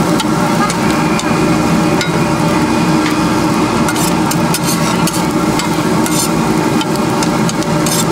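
Metal spatula scraping and clanking against a large wok as a big batch of pork fried rice is stir-fried, with many short sharp clacks over a steady sizzle.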